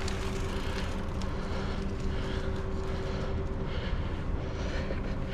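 Mountain bike rolling along a dirt singletrack: tyre rumble on the trail and wind on the microphone, with small clicks and rattles from the bike and a steady hum throughout.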